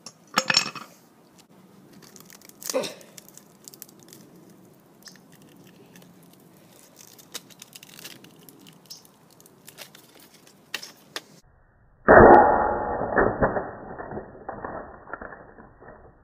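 A cheap phone being smashed with large tongue-and-groove pliers on concrete: two sharp cracks of plastic and glass breaking, then small clinks of broken pieces being handled. Near the end, a louder, muffled stretch of crashing.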